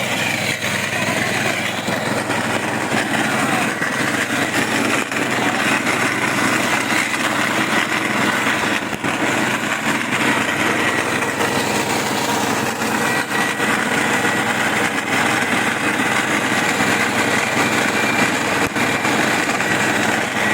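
Wet coffee pulping machine for red coffee cherries running steadily on a test run, its motor and rotor giving an even, continuous drone with a faint high whine.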